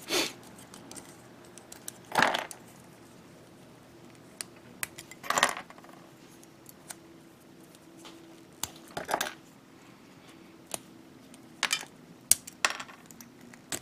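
Small plastic model-kit parts of a Bandai G-Frame figure being handled and pressed together: scattered light clicks and rattles, with a few louder rustling snaps about two and five seconds in and a cluster of clicks near the end.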